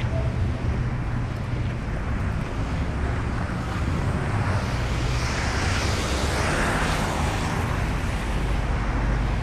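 A car passing on a wet road, its tyres hissing on the wet pavement, swelling and fading between about four and a half and seven and a half seconds in, over a steady low rumble.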